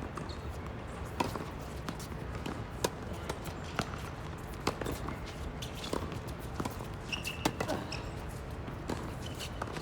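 Tennis balls being struck by racquets and bouncing on the court: sharp, irregular pops roughly once a second over a low, steady rumble.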